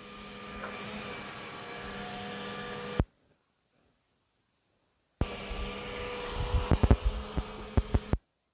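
Excavator engine and hydraulics running with a steady hum. The sound cuts off abruptly for about two seconds in the middle and again just before the end, and after it returns there is a run of sharp knocks as the bucket works the dirt.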